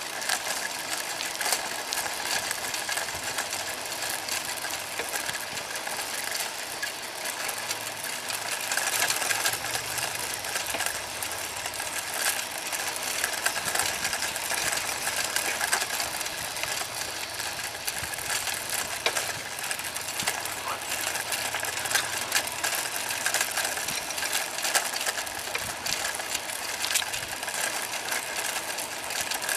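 Bicycle rolling along an asphalt path: steady tyre and rushing noise with constant small clicks and rattles from the bike.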